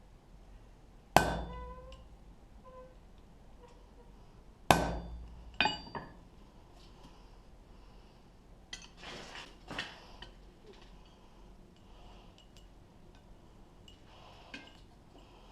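Hammer blows on steel in blacksmith work, likely driving a punch to mark the pips of forged iron dice. There are a few sharp strikes that ring: one about a second in, then two close together around five and six seconds. Lighter metal clinks and rattles follow near the middle.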